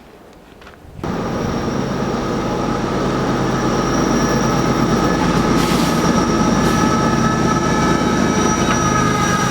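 A train passing close by, a loud rumble and clatter of wheels on rail with steady high-pitched wheel squeal over it, starting abruptly about a second in.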